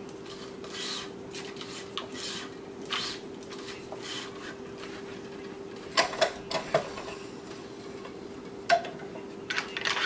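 Tennis racquet string being pulled and woven through the strings of a racquet on a stringing machine: soft rubbing swishes, then several groups of sharp clicks and knocks from the machine, over a faint steady hum.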